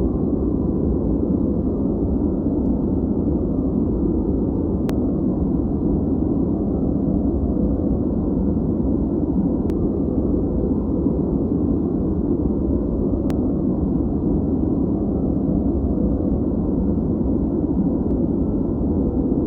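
Steady synthetic white-noise track, deep and muffled rather than hissy, with its weight in the low range and no high end. Three faint ticks sound at about five, ten and thirteen seconds in.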